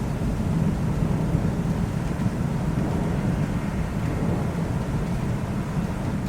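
Low thunder rumbling steadily under rain, with no sharp claps.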